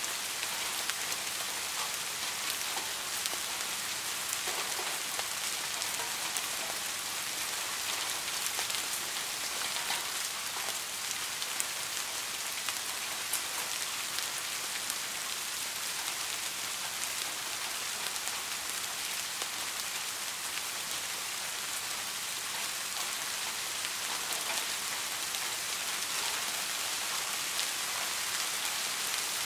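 Soft rain falling steadily, an even hiss of many drops with scattered sharper individual drop hits.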